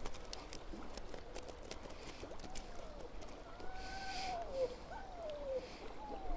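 A dog whining faintly, a few wavering whines that slide down in pitch, over the steady wash of river water; the dog is excited and eager to get at a freshly landed trout.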